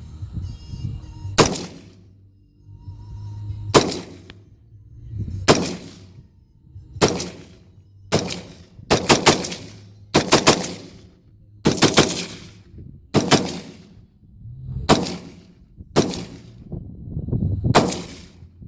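AR-15 rifle firing semi-automatic shots at a steady, unhurried pace, about a dozen in all, roughly one every one to two seconds with a few quicker pairs, each shot's report ringing out briefly.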